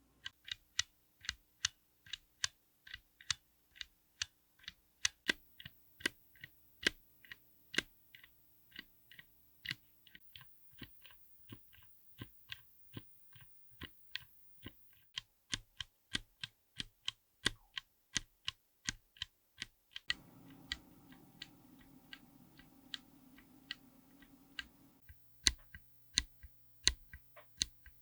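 Keystrokes on a mechanical keyboard fitted with tactile switches: a steady run of separate clacks, about two to three a second. The background hum changes a few times as one take follows another.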